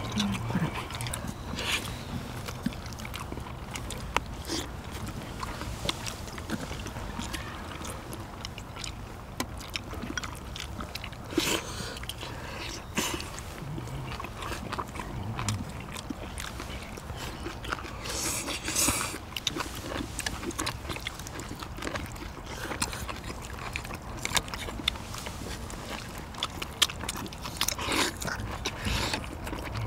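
People eating spicy braised seafood with chopsticks: chewing and slurping, with many short clicks and taps of chopsticks and shells against ceramic bowls and a metal tray.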